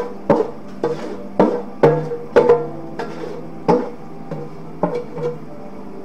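Music of plucked or struck notes, about eleven in an uneven rhythm, each ringing briefly, over a steady hum.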